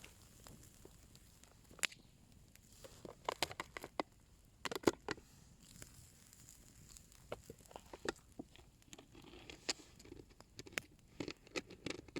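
A small bonfire crackling, with scattered sharp pops and clicks, some in quick clusters.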